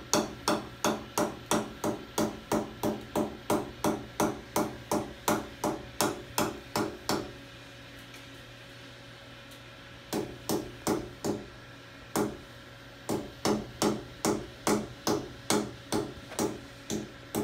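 Small Matco mallet with a Teflon tip lightly tapping copper wire into the O-ring groove around a cylinder sleeve of an engine block. The taps come steadily at about three a second, stop for a couple of seconds a little before halfway, then resume.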